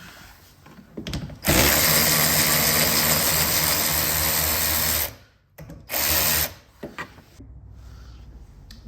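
Power drill spinning for about three and a half seconds, stopping, then running again in a short burst, backing out the 8 mm bolts that hold a car door mirror. A few light clicks come before and after the runs.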